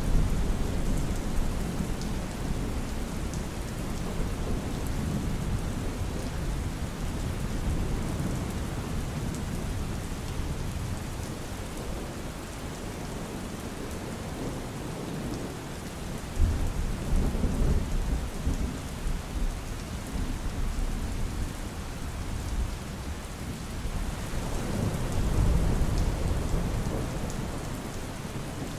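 Steady rainfall with low rumbles swelling up about halfway through and again near the end.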